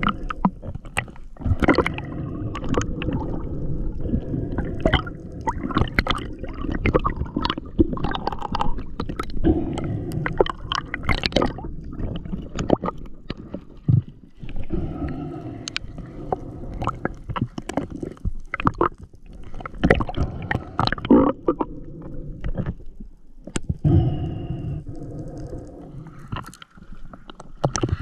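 Underwater sound picked up by a camera in its housing: gurgling, bubbling water with frequent sharp clicks and knocks.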